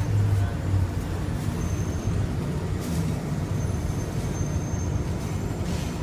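Bombardier Innovia APM 100 people-mover car running along its concrete guideway on rubber tyres, heard from inside the cabin as a steady low rumble. A faint high whine comes and goes, and there are two brief rattles about three seconds apart.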